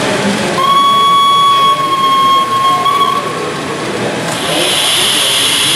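Model steam locomotive sound effects: one steady whistle blast lasting about two and a half seconds, with a slight lift in pitch just before it stops. Then, after a short pause, a steady hiss like escaping steam begins and carries on.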